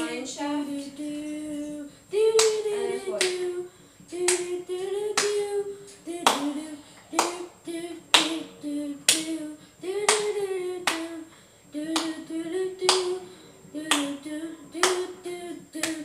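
Hands clapping a steady beat about once a second, with a voice singing a tune over the claps.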